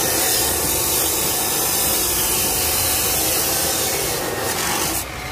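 Power tool working wood: a steady, loud rasping noise that cuts off abruptly about five seconds in.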